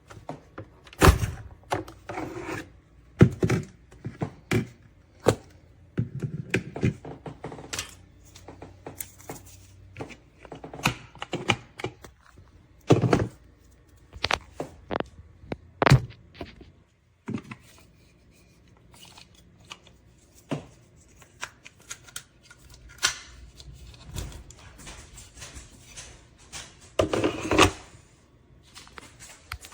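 Irregular clacks, clicks and thunks of a capsule espresso machine's plastic parts being handled, taken off and fitted back on. There is no pump or brewing sound: the machine is not brewing.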